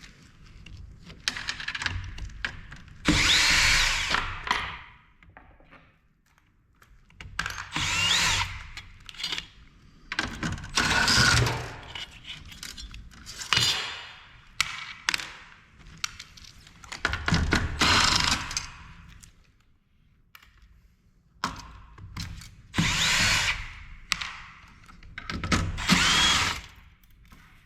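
Cordless drill/driver run in short bursts of about a second each, around eight times, backing out screws and nuts to free a monitor's main board, with a motor whine that rises within some bursts and small clicks of metal parts between them.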